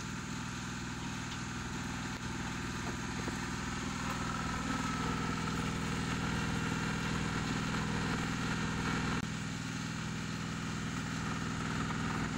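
Large diesel engine idling steadily, a constant low running hum.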